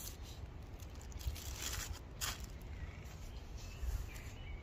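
A few short rustles and crinkles in the first couple of seconds as a person shifts and handles a plastic snack packet, over a low wind rumble on the microphone.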